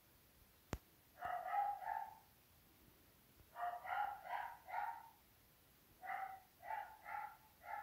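A small dog yapping in three quick runs of three to five high yaps, with a single sharp click just under a second in.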